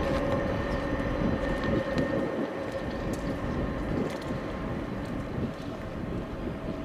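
Boeing 777-300 jet engines running at low power, a steady whine over a low rumble that slowly fades.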